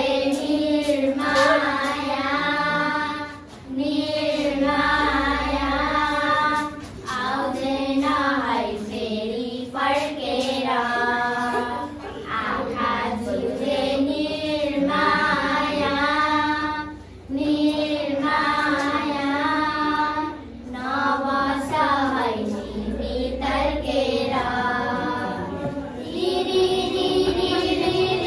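Four young girls singing a song together without accompaniment, in phrases of a few seconds broken by short pauses for breath.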